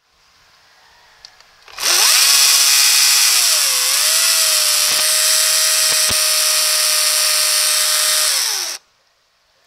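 Greenworks 40V battery chainsaw spinning up with a rising whine about two seconds in, running free in the air without cutting, with a brief dip in pitch, then winding down and stopping near the end. It runs again after being cooled following a thermal-overload shutdown.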